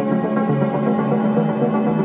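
Background music: slow ambient music with long held notes over a steady low drone.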